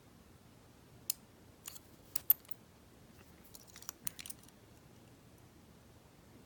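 Lock pick and tension wrench clicking and tapping in a US Mail registered padlock's pin-tumbler keyway as picking starts again: a scattered handful of small metallic clicks, the sharpest a little past two seconds in and a quick cluster around four seconds.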